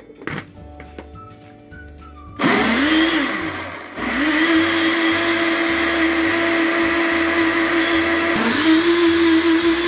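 Electric countertop blender with a plastic jug blending milk and mango: a few clicks as the lid is pressed on, then the motor starts about two and a half seconds in with a rising whine. It stops briefly a second later, starts again and runs steadily, dipping and picking up once more near the end.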